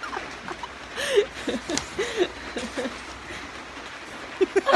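Stifled laughter in short, separate bursts, breaking into louder laughing near the end.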